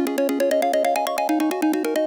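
iPhone ringtone playing: a synthesized melody of rapid short notes, about ten a second, stepping up and down in pitch.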